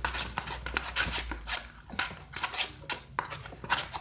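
Sticky glue-and-contact-solution slime being stirred in a bowl as it thickens: irregular wet squelches and clicks, several a second.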